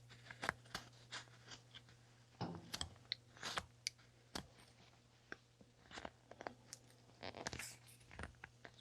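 Carving knife slicing into basswood: short, crisp crunching cuts at an uneven pace, some coming in quick clusters, over a faint steady low hum.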